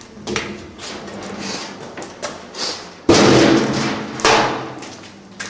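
Sheet-metal cover panel of a thermal test chamber being handled and set down: two heavy thumps about a second apart, the louder one about three seconds in, each trailing off briefly.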